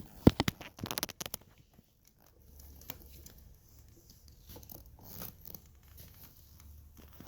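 Handling noises: a cluster of sharp knocks and clicks in the first second and a half, then quieter rustling with scattered clicks.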